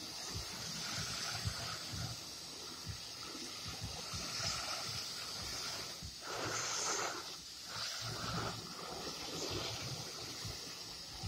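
Spray of water falling steadily on a plastic rolling toolbox, a constant hiss with water spattering on the lid, in a test of whether the box keeps water out.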